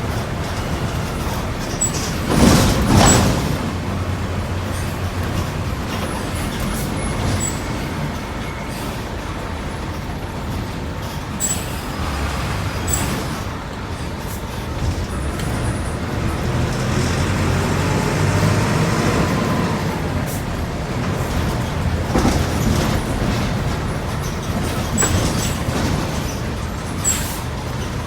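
Diesel engine of a Volkswagen 15.190 EOD city bus running while the bus drives, its pitch rising and falling once as it revs through a gear. A short, loud rush of noise comes about two seconds in.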